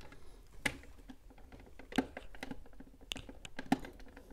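Plastic front cover of a UniFi in-wall access point being pressed and snapped onto its wall-mounted base: about five sharp plastic clicks and taps, the strongest about two seconds in and shortly before the end.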